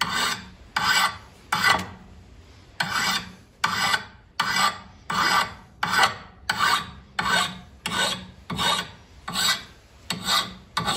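Nicholson hand file rasping along a hatchet's steel blade in steady strokes, about one every three quarters of a second, with a short pause about two seconds in: the blade's edge being filed back to its profile before sharpening.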